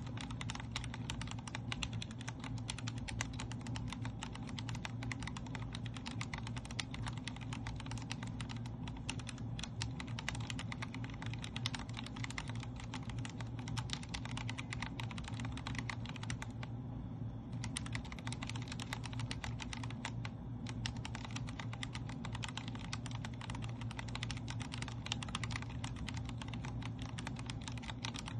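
Fast, continuous typing on a Vortex Core 40% mechanical keyboard with Cherry MX Speed Silver linear switches, a dense run of key clicks and bottoming-out clacks. The typing breaks off briefly twice, about two-thirds of the way through.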